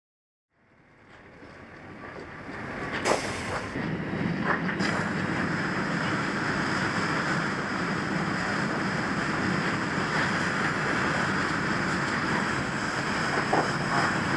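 Steady rushing noise of water spraying from a fire hose stream, fading in over the first few seconds. A few sharp knocks stand out, about three and four and a half seconds in and near the end.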